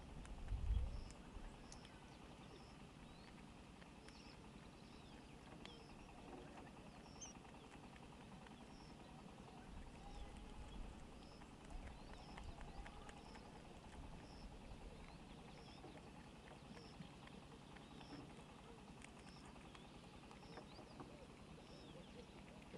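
Quiet outdoor ambience: a faint high chirp repeating roughly once or twice a second, with a few faint clicks. A low thump about a second in and a low rumble partway through.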